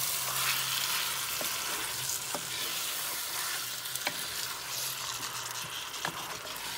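Spice-marinated chicken pieces sizzling in a nonstick frying pan as they are stirred and turned with a wooden spatula, with a few sharp clicks of the spatula against the pan. This is the start of cooking a curry: the marinated meat has just gone onto the heat.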